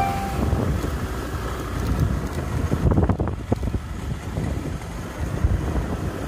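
Wind rumbling and buffeting on the microphone, with a vehicle running underneath.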